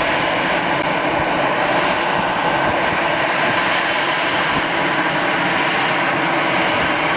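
Airbus A320 twin jet engines running, a loud steady noise that holds level without rising or falling.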